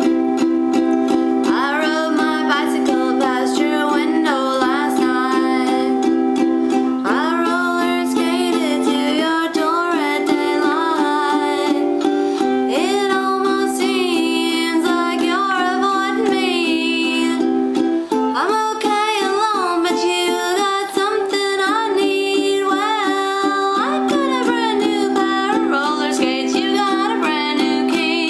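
A woman singing while strumming steady chords on a small bowl-backed mandolin; her voice comes in about a second and a half in, over the strumming.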